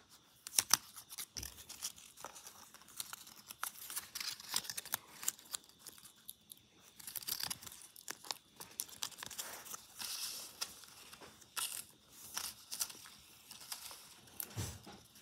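Paper and a thin clear plastic container handled close to the microphone: irregular rustling, crinkling and small clicks.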